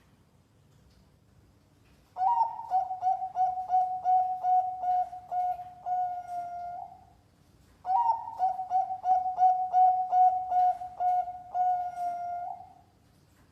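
Zebra dove (Bangkok-bred perkutut) singing two song phrases, each a run of short coos ending in a longer held note.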